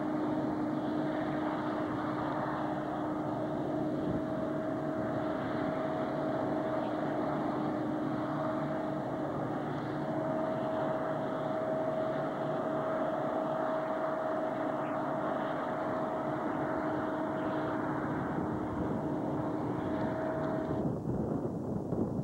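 Several diesel locomotives at the head of a BNSF coal train, running with a steady drone. Near the end the engine sound cuts off abruptly, giving way to wind on the microphone.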